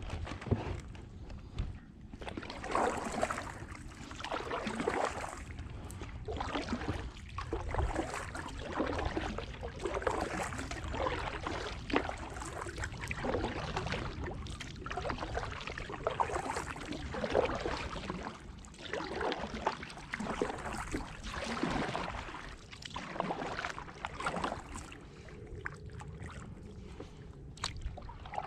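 Kayak paddle strokes: the blades dip and swish through the water in a repeating rhythm, about one stroke every second or two, as a Perception Tribe 11.5 sit-on-top kayak is paddled along. A steady low rumble runs underneath.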